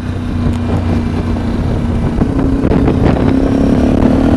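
Sinnis Terrain 125's single-cylinder engine running under way through its stainless Torro exhaust system. It holds a steady note that climbs a little in pitch and grows slightly louder over the last couple of seconds as the bike pulls on.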